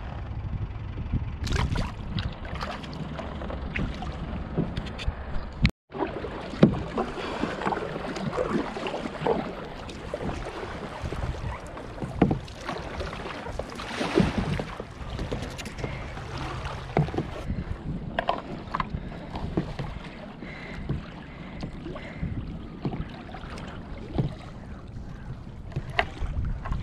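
Water splashing and lapping around a plastic sit-on fishing kayak, with irregular paddle splashes and small knocks against the hull. Wind buffets the microphone in the first few seconds, and the sound drops out briefly about six seconds in.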